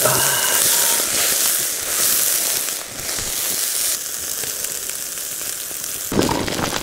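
Pieces of offal sizzling on a wire grill over a charcoal fire, fat crackling and spitting. The sizzle turns briefly louder about six seconds in.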